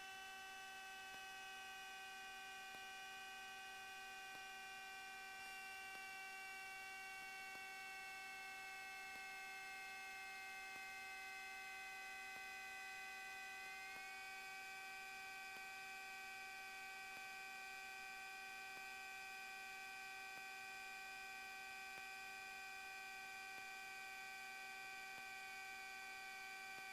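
Faint electrical hum and whine on a light twin's cockpit intercom feed: several steady tones, with one higher whine that slowly sinks in pitch and then steps back up about halfway through.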